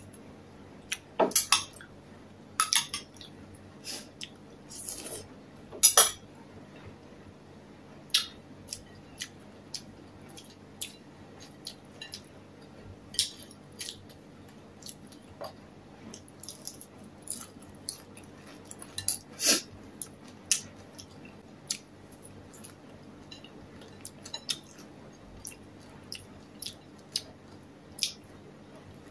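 Eating sounds: a metal spoon clinking now and then against a ceramic soup bowl, among many small clicks of chewing.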